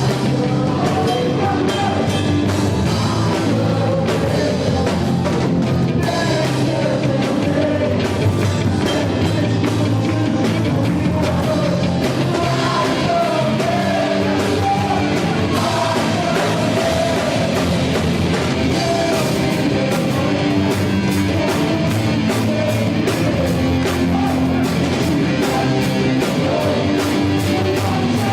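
Gospel rock worship song played by a live band with drum kit and electric guitar, with singing over it, loud and continuous.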